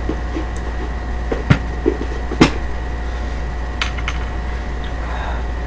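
A few short, sharp knocks and clicks over a steady low hum: a glass bottle and tableware being set down and handled on the table during a meal.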